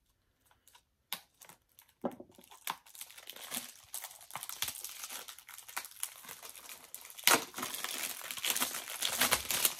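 Packaging crinkling and tearing as a Blu-ray is unwrapped by hand: a few light clicks, then steady crackling from about two seconds in, loudest about seven seconds in.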